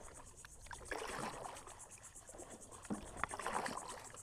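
Kayak paddles dipping and pulling through the water, twice, each stroke a swell of splashing and dripping, over a steady high pulsing trill.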